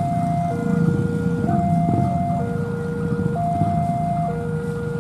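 Railway level-crossing warning alarm sounding a repeated two-tone high–low signal, each tone held about a second, with the low rumble of a departing freight train's diesel locomotive beneath.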